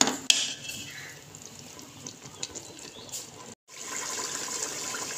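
Curry masala of oil, onions, tomatoes and spices frying in a metal pot, bubbling and sizzling as its remaining water cooks off, with a couple of steel ladle clinks against the pot at the start. The audio cuts out for an instant about three and a half seconds in, then the sizzling goes on steadier and a little louder.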